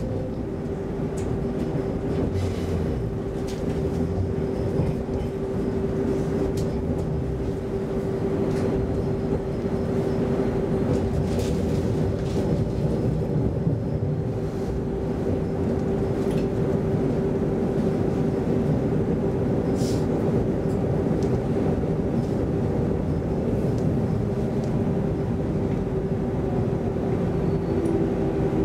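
Cabin sound of a Stockholm X10 electric commuter train running on the rails: a steady low rumble with a constant hum, and a few faint clicks.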